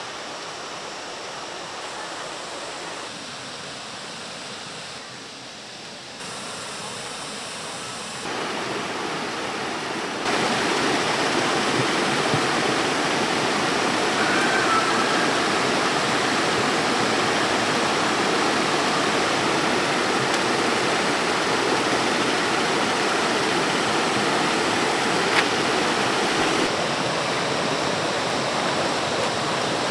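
Heavy rain pouring down in a steady hiss. Its loudness jumps up in steps and is heaviest from about ten seconds in.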